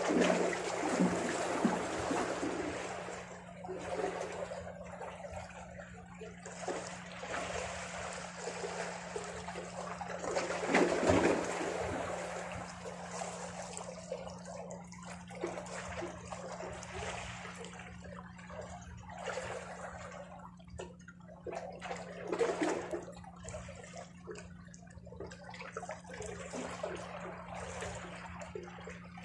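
Small sea waves washing and splashing against shoreline rocks, in irregular surges that are loudest near the start and about eleven seconds in.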